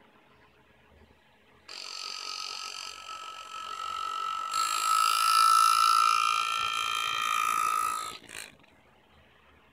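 Air-driven engraving handpiece buzzing steadily with a high hum as the graver is driven into metal to cut a line, starting about two seconds in, growing louder about halfway, and stopping about a second before the end with a short blip.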